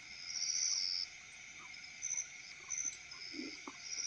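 Night insects, crickets, trilling in a steady chorus, with a higher-pitched trill swelling in bursts of about half a second to a second, several times.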